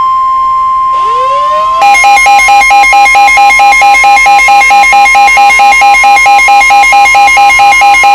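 Emergency Alert System attention signal heralding a special marine warning: a loud steady tone near 1 kHz. About a second in, rising tone glides come in, and from about two seconds a second tone pulses about four times a second over it.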